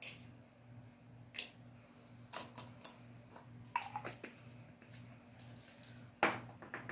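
Scattered sharp plastic clicks and taps of pills and lids on a plastic weekly pill organizer as it is filled, a few isolated clicks with a cluster about four seconds in, over a faint low hum.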